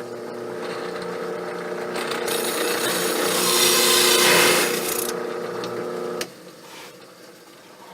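DeWalt 2-1/2 inch bi-metal hole saw running in a drill press and cutting through the workpiece. The motor starts with a click, the rasping cut grows loudest in the middle as the saw goes through, and the motor stops suddenly a little after six seconds.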